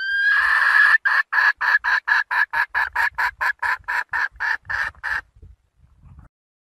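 Red junglefowl hen calling to a rooster: one long rising note, then a fast even run of short clucking notes, about four a second, that stops near the end.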